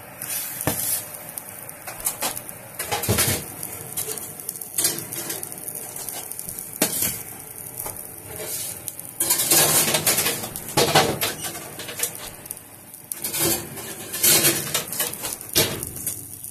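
Metal baking tray and oven racks clattering and scraping at an open oven, with irregular knocks throughout and longer scraping stretches about nine seconds in and again near the end.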